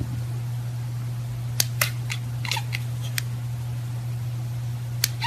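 A few sharp, irregular clicks over a steady low hum: two about a second and a half in, a quick cluster a second later, and one more near the end.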